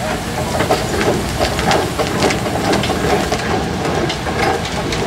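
1915 Kelly Springfield 12-ton steam roller running, its steam engine hissing and chuffing as it rolls, with irregular clicks and knocks throughout.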